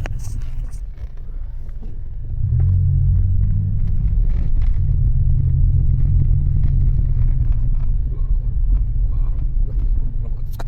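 Low rumble of a Mitsubishi Delica on the move, heard from inside the cabin, getting louder about two and a half seconds in.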